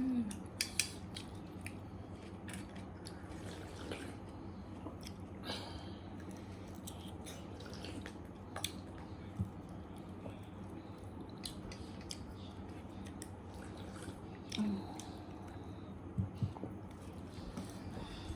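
A person chewing food during a mukbang meal of noodle soup and chilli pork, with scattered soft clicks and mouth sounds over a steady low background hum.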